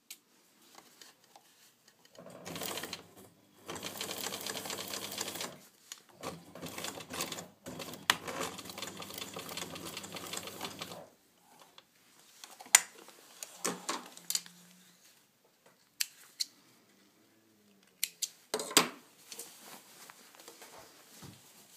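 Electric sewing machine stitching in three short runs, stopping and restarting between them as it backstitches at the end of a seam. After that come scattered clicks and knocks as the fabric is handled and drawn away from the machine.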